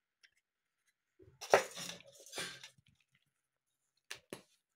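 A Kinder Surprise's yellow plastic toy capsule being handled and prised at with the fingers: one sharp plastic click about one and a half seconds in, followed by about a second of light rustling, then two small clicks near the end.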